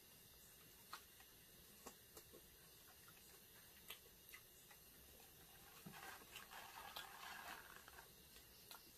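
Near silence, with a few faint ticks and a soft rustle lasting a couple of seconds near the end, from egg rolls in paper wrappings being handled and torn while eating.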